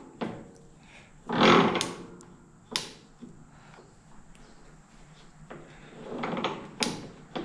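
Metal lathe's headstock speed-change lever being shifted while the chuck is turned by hand: a few sharp metallic clicks and two longer, louder clunks, one about a second and a half in and one near the end.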